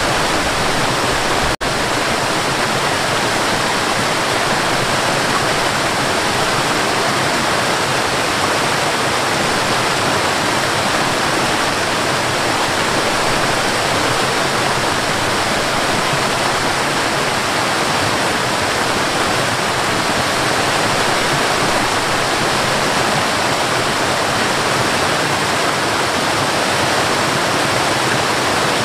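Waterfall: a steady rush of falling water, with a momentary break in the sound about a second and a half in.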